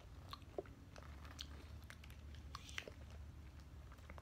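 Quiet wet chewing and lip smacks from someone eating fruit jelly off a plastic spoon, with scattered small clicks, over a faint steady low hum.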